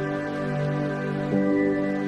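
Slow, gentle background music with held notes that change about once a second.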